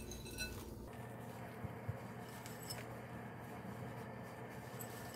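Faint steady room hum with a low steady tone, and a few light clicks near the middle.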